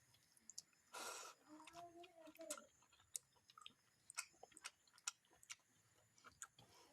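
Close, faint eating sounds of a person chewing fish fry and rice: wet mouth clicks and smacks scattered throughout. About a second in there is a brief breathy rush, like a sniff or slurp, then a short pitched vocal sound.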